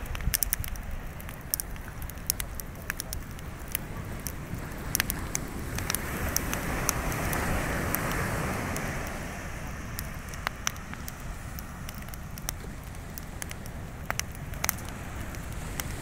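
Wood bonfire crackling, with sharp pops and snaps scattered irregularly throughout over a steady rushing background that swells for a few seconds in the middle.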